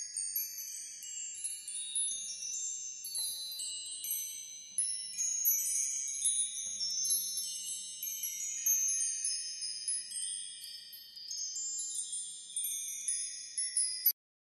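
High, tinkling chime tones, many overlapping and ringing on like a wind chime, that cut off suddenly near the end.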